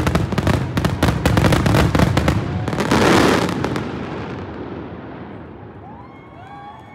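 Aerial fireworks going off in a rapid, dense string of bangs and crackles, then dying away over the last few seconds as the display thins out.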